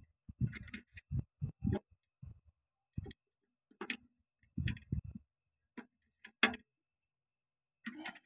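Irregular sharp metallic clicks and clinks from the PTO release fingers, springs and cast pressure plate of a John Deere 5310 clutch assembly being handled and fitted by hand.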